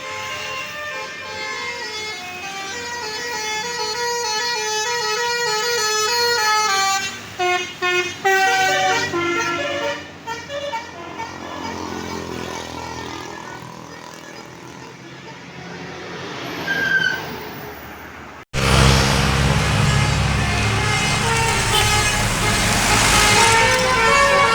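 Bus telolet horn (Basuri multi-tone air horns) playing a stepped melody of several notes at once. It fades for a while, then after an abrupt cut near the end a louder horn tune plays over a heavy low rumble.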